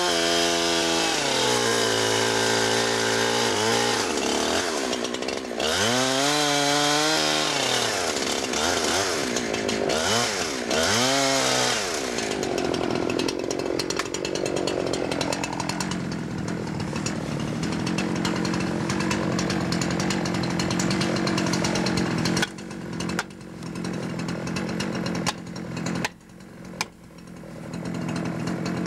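Chainsaw cutting into a tree trunk, its engine revving up and down, then running steadily at a lower speed. Over the last several seconds come a series of sharp knocks: an axe driving a felling wedge into the back cut.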